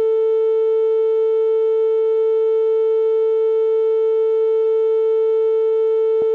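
Steady electronically generated tone, a single held pitch of about 450 Hz with faint overtones, played as an 'ear-unclogging frequency'. A brief click sounds near the end.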